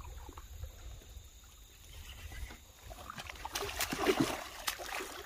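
Hooked common carp thrashing at the water's surface, a run of splashes starting about three seconds in and strongest a little after four seconds.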